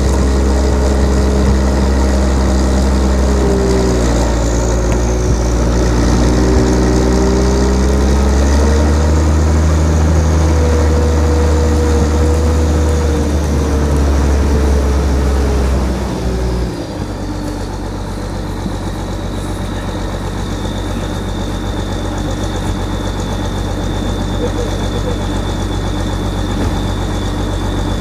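Snowcat's diesel engine running, its pitch wavering up and down, then dropping abruptly to a steadier, lower idle a little past halfway through.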